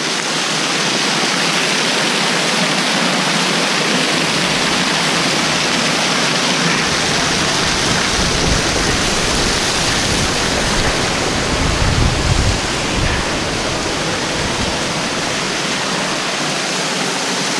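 Waterfall water rushing loudly over rocks close by, a steady dense roar. A deeper rumble joins it about four seconds in and drops away near the end.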